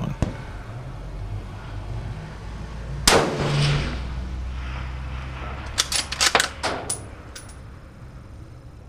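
A Ruger Precision Rifle in 6.5 Creedmoor fires one shot about three seconds in, a sharp crack that dies away over about a second. Some three seconds later comes a quick run of sharp clicks.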